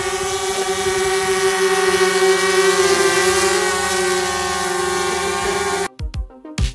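DJI Mavic Air quadcopter hovering, its propellers giving a steady high whine with a buzzing hiss. Near the end it cuts off and electronic music with a heavy beat takes over.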